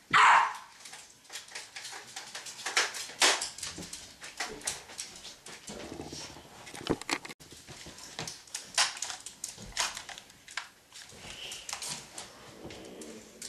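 A loud, dog-like bark or yelp right at the start, then scattered knocks, clatter and rustling with faint whimpering sounds.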